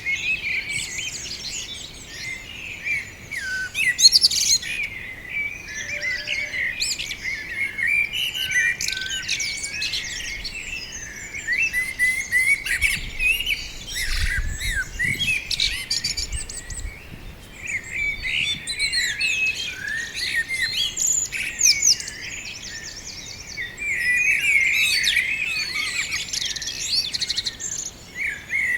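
Many songbirds chirping and singing at once in a dense, overlapping chorus of quick high chirps and trills. A brief low rumble comes about halfway through.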